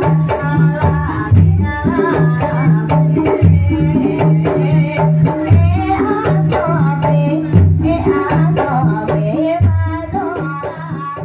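Javanese gamelan music accompanying an ebeg horse-trance dance: kendang hand-drum strokes keep a steady rhythm under a wavering melody line. It fades away near the end.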